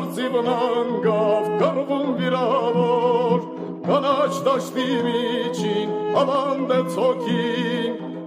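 Recording of an Armenian folk song: a wavering, ornamented melody with strong vibrato over a steady low drone, with brief breaks between phrases.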